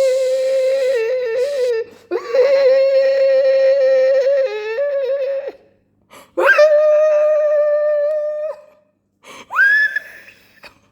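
Infant crying in long, held wails: three long cries of two to three seconds each with short breaths between, then a shorter cry near the end.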